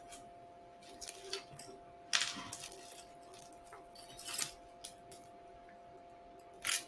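Costume jewelry being handled and sorted: scattered light metallic clinks and jingles of bracelets and small pieces, the busiest stretch about two seconds in and a sharp click near the end.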